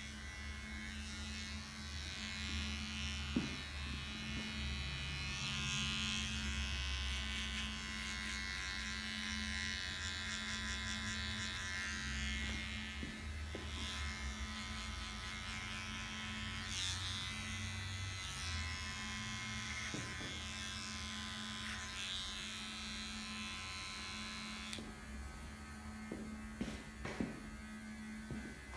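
Cordless electric hair clipper buzzing steadily as it is worked through a short fade at the back of the neck. Near the end the buzz thins out and a few light taps are heard.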